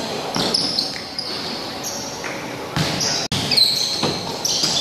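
Sneakers squeaking on a wooden basketball court and the ball bouncing, with players' voices echoing in a large gym. The sound cuts out for an instant about three seconds in.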